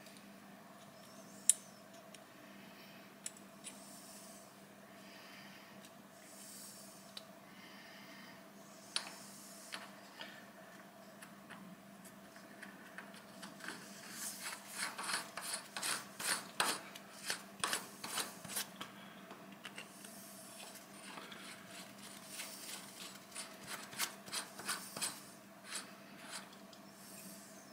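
Knurled brass nut being turned by hand on the threaded shank of a lathe lantern chuck: a few single metal taps, then two stretches of quick, rasping clicks from the threads and knurling, over a faint steady hum.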